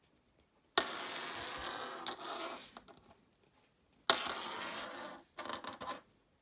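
Scraping and rustling as small objects are handled, in two stretches of one to two seconds that each start abruptly, with a few light clicks between.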